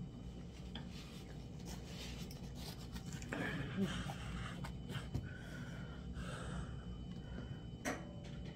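A person eating fufu by hand: soft mouth and breathing sounds with light rustles and clicks, over a steady low hum.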